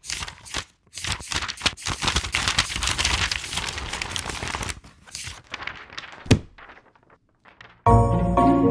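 Crinkling, rustling noise in quick irregular bursts, like paper being handled, thinning out about five seconds in, then one sharp click. A music jingle starts near the end.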